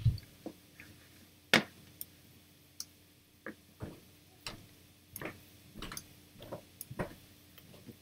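A series of irregular sharp clicks, about a dozen over several seconds, with a low thump at the start and the loudest click about a second and a half in: a computer mouse being clicked while a measurement box is placed in the microscope camera software.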